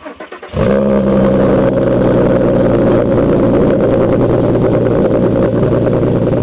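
VW Golf R32's 3.2-litre VR6 engine turned over by the starter, catching about half a second in and settling into a loud, steady idle through a Scorpion non-resonated cat-back exhaust on its first start.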